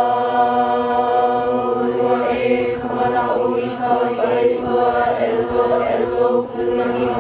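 A large group of voices chanting together in unison, holding long, mostly level notes in one continuous phrase.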